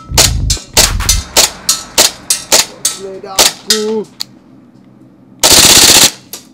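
A steady series of single gunshots, about four a second, then a short, very loud full-auto burst near the end.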